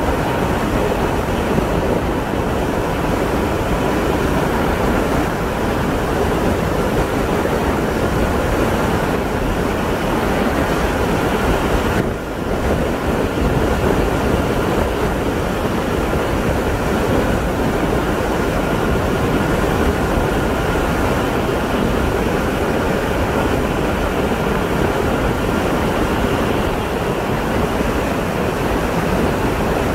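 Steady rush of wind and tyre-on-asphalt noise from a vehicle travelling at speed, with a faint steady high whine under it. The noise dips briefly near the middle.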